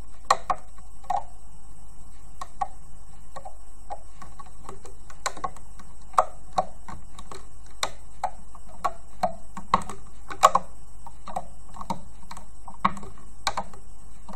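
Irregular light clicks and taps of a loom hook and rubber bands against the pins of a plastic loom, a few clicks louder than the rest, as bands are looped up along the row.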